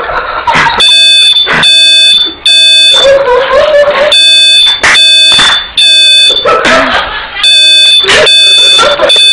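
Shrill electronic alarm beeping very loudly in groups of three, each beep about half a second long, with a pause of about a second between groups: the temporal-three pattern of a smoke alarm.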